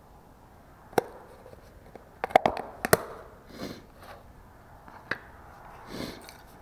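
Snap-on plastic lid of a tub of carpenter's wood filler being pried off: a sharp click about a second in, a quick run of snaps and cracks between two and three seconds, then a few softer scuffs as the lid comes away.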